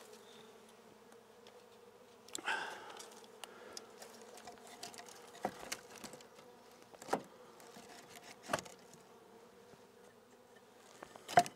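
Honey bees buzzing around their hive, a steady hum, while a wooden board is fitted over the chicken coop's entrance opening, giving a few sharp knocks spread through, the loudest near the end.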